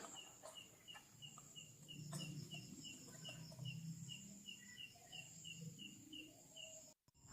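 Near silence with faint, evenly repeated high chirps from a small animal, about three a second.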